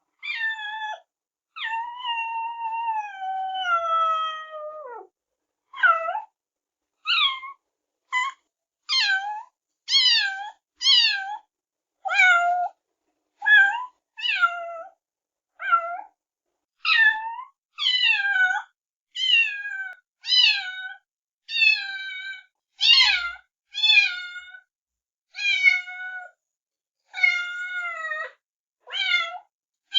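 Kittens meowing: one long, high meow falling in pitch early on, then a run of short meows about one a second.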